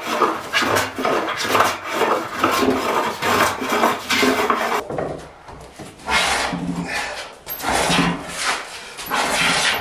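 Small hand plane shaving an oak slab, a rasping scrape on each push. There are quick strokes about two a second at first, then after about five seconds slower, longer strokes.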